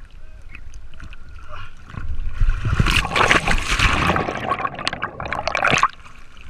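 Water rushing and splashing from a wakeboard or boat on the sea. It gets louder about two seconds in and cuts off suddenly near the end.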